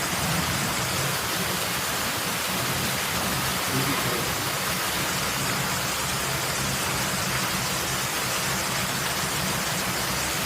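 Steady, even hiss of a gas brazing torch flame burning while copper tube is brazed.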